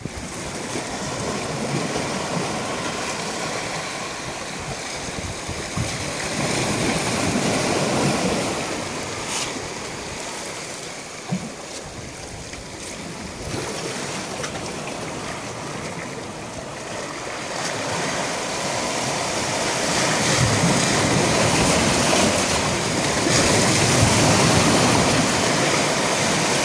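Sea waves washing over and against shoreline rocks: a steady rushing of water that swells and eases, louder in the last third.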